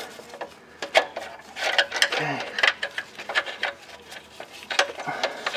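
Wrench working the nuts of a connecting-rod bearing cap on a Detroit Diesel 8V92 to pull the cap off: irregular metallic clicks and clinks of the tool and the loosening cap.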